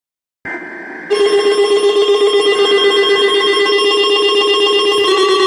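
Weather radio alert for the NOAA Weather Radio weekly test. A quieter high tone starts about half a second in. At about a second a loud, rapidly trilling electronic alarm tone with many overtones begins and keeps going.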